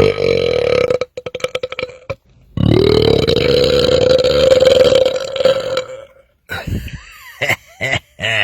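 A man belching loudly: a short burp that breaks into a rattling, croaky tail, then a long drawn-out belch of about three seconds that slides up and holds a steady pitch. A few short vocal croaks follow near the end.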